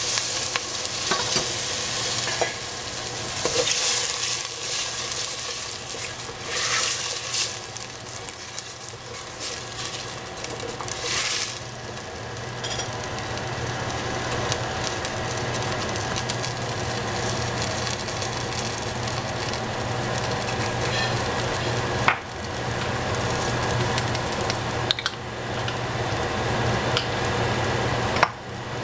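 Mushrooms and baby zucchini frying and sizzling in a pan as they are stirred, the sizzle swelling in louder bursts during the first dozen seconds, with a few sharp clicks later on over a steady low hum.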